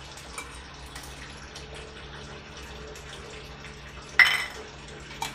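Steel spoon scraping and tapping in a small steel pot as crushed garlic is added to oil, with one loud metallic clink about four seconds in, over a steady low hum.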